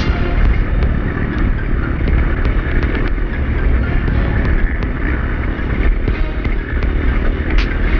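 Dirt bike under way: a steady, heavy rumble of engine and wind noise with scattered small ticks and knocks.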